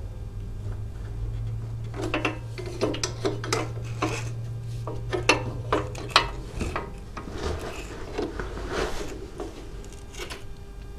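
Irregular clicks, knocks and scraping of metal parts as a motorcycle's rear brake master cylinder, with its brake line attached, is worked into position on the frame.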